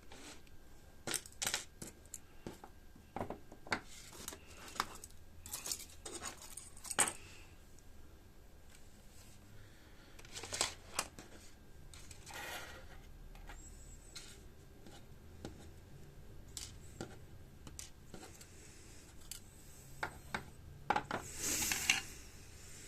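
Scattered light clicks and small metallic clinks of small parts and tools being moved about on a workbench during a search for a missing crystal, with a longer rustle near the end.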